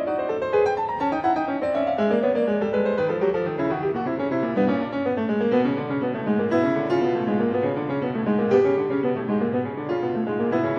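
Solo piano music: a steady stream of quick notes running up and down.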